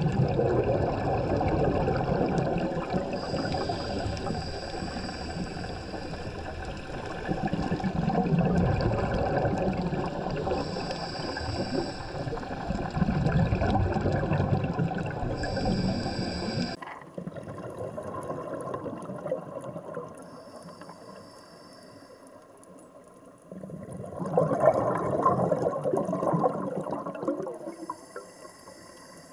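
Underwater recording of a scuba diver's exhaled air bubbles rumbling and gurgling, swelling in surges every few seconds with each breath out. About 17 seconds in the sound cuts to a quieter stretch, then another strong surge of bubbles comes near the end.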